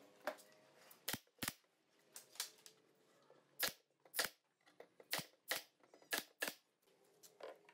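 Nail gun firing nails into pine trim on a cabinet top, about a dozen sharp shots spaced unevenly, one or two a second.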